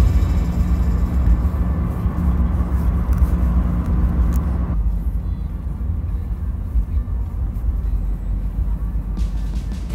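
Low, steady rumble of road and engine noise inside a moving car's cabin; the higher part of the noise drops away about halfway through.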